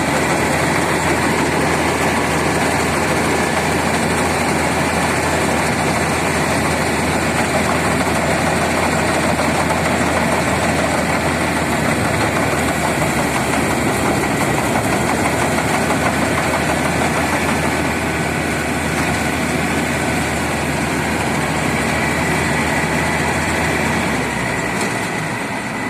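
Combine harvester's engine and machinery running steadily, a loud continuous mechanical drone; near the end the low hum changes and the level drops a little.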